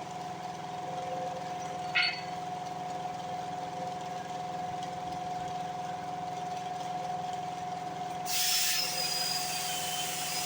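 A steady machine hum with a high held whine running throughout, a brief sharp clatter about two seconds in, and a broad hiss that comes in near the end.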